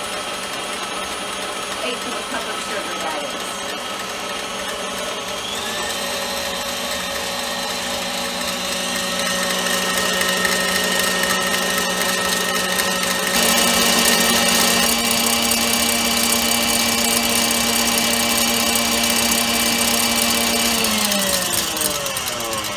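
KitchenAid Heavy Duty stand mixer running, its wire whisk beating egg white in a stainless steel bowl. The motor whine is steady and steps up in pitch twice, about five seconds in and again near the middle, then falls away near the end as the mixer is switched off.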